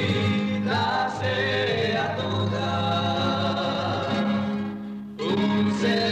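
Male vocal trio singing a Christian hymn in harmony, with a short break between phrases about five seconds in, from an old tape recording.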